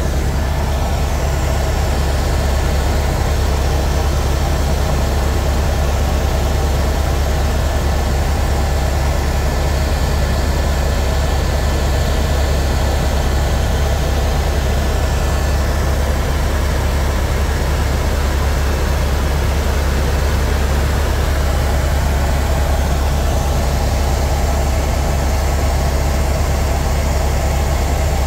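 Tour helicopter in flight: a loud, steady, deep drone of engine and rotor that holds unchanged throughout.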